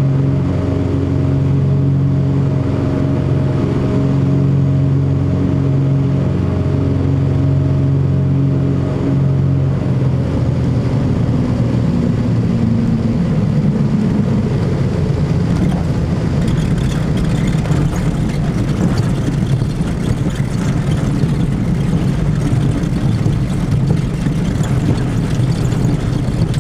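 Cessna 404 Titan's twin turbocharged piston engines running with a steady drone. About ten seconds in, the pitch sags slightly and the sound turns rougher and noisier, with more hiss.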